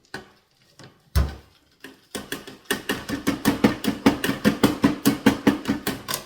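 A thump, then a fast, even run of knocks, about five or six a second: a container being rapped to shake out ground cashew nut and Parmesan mix that is sticking inside.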